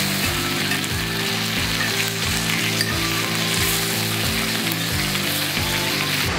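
Sliced meat sizzling and frying in a hot skillet, a steady hiss, with background music with a steady beat underneath; the sizzle cuts off suddenly at the very end.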